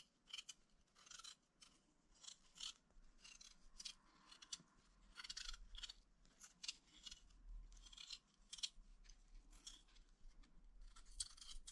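A blade working potatoes in short, faint scraping strokes, about one or two a second.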